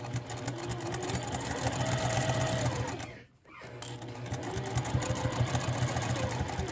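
A domestic sewing machine stitches at a steady speed with a fast, even needle rhythm. A little past the middle it stops for about half a second, then starts stitching again.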